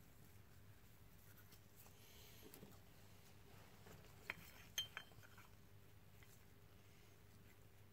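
Near silence with a faint hum, broken about halfway through by a few light metal clicks and clinks as a brake caliper piston is handled and pushed into the caliper body.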